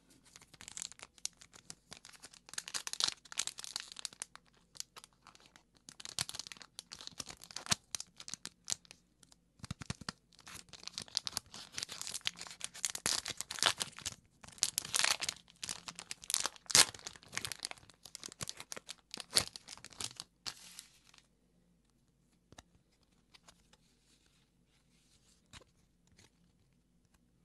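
Plastic wrapper of a Chiikawa trading card pack crinkling and tearing open by hand, in irregular bursts of crackling. About twenty seconds in the crackling stops, and only faint taps and slides of the cards being handled remain.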